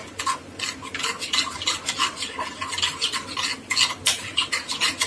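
Wheat flour and a little water being stirred in a small bowl into a smooth, lump-free paste: an irregular run of short scraping clicks, several a second.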